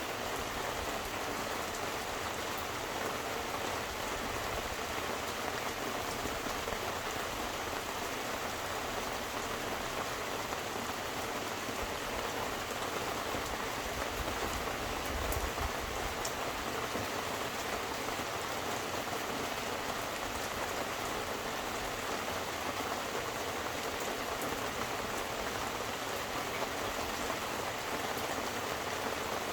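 Steady rain falling: an even hiss with scattered drops ticking. A brief low rumble swells about halfway through.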